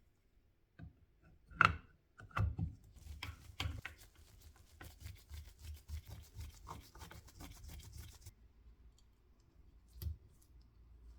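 Hand work on a cordless jigsaw's parts: a sharp knock, a few more knocks, then a run of quick, even clicking for about five seconds, and a last knock near the end. No motor runs.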